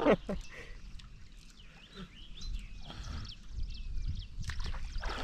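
Small birds chirping, short curved calls repeated over a low steady outdoor rumble.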